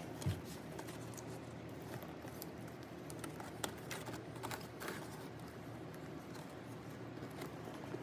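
Faint scattered taps, clicks and rustles of hands handling plastic interior trim panels and cable, over a low steady hum.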